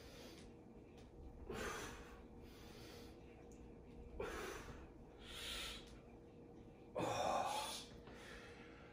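A man breathing hard and forcefully while exercising with a steel mace: about four heavy breaths or gasps, the loudest about seven seconds in.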